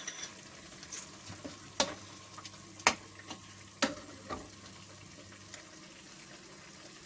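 Cuttlefish sauce sizzling in a pan while it is stirred, with a few sharp knocks of the spoon against the pan about two, three and four seconds in.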